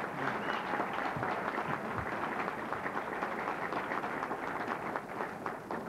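Audience applauding: a roomful of people clapping at a steady level throughout.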